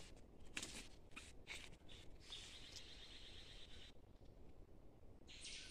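Near silence in forest: faint rustling steps in dry leaf litter, with a faint high buzzing call for about a second and a half midway and again briefly near the end.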